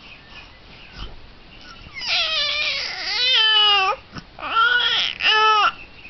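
Baby crying: one long cry with a wavering pitch about two seconds in, then two shorter cries near the end.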